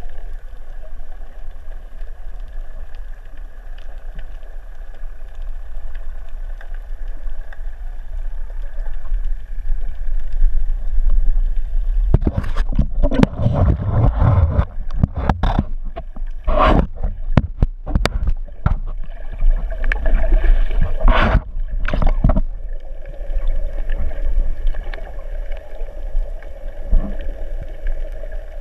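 Underwater sound picked up by a snorkeler's camera: a steady low rumble with a faint hum. About twelve seconds in, roughly ten seconds of loud, irregular water sloshing and splashing against the camera as it is lifted toward the surface, then the steady underwater rumble returns.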